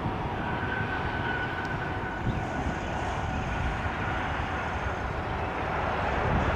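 Jet airliner engines running, a broad steady rush with a faint high whine held for several seconds, growing louder near the end.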